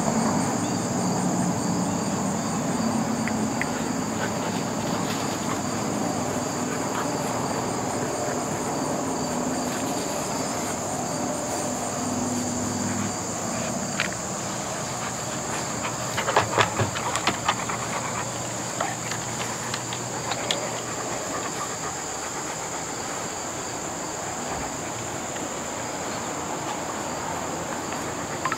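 Steady, high-pitched chorus of field insects, with a low hum underneath that stops about halfway. A brief cluster of clicks and knocks comes a little past the middle.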